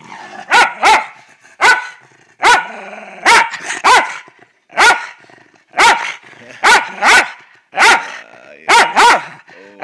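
A dog barking repeatedly in sharp, short barks, roughly one a second, some coming in quick pairs.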